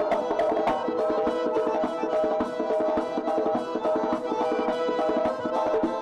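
Circassian folk dance music: a fast, even clacking percussion beat under a sustained melody line.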